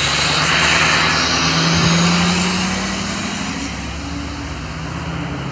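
Ford 6.0L Power Stroke V8 turbo diesel of an E350 van pulling away under power. The engine is loudest about two seconds in, then eases off as it moves away, with a thin high whine climbing steadily in pitch.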